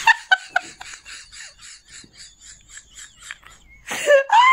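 A person laughing helplessly: a run of breathy, near-voiceless laugh pulses about five a second, breaking into a loud voiced laugh near the end.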